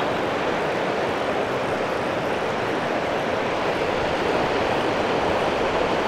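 Steady rush of river rapids, white water running fast over a shallow stony bed.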